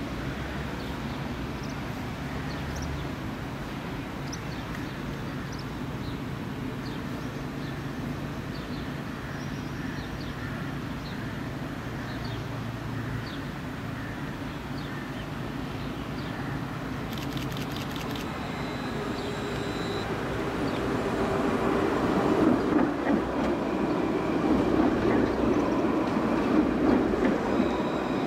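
Tram approaching and passing close by: a low rolling rumble of wheels on rail that grows louder over the last eight seconds or so.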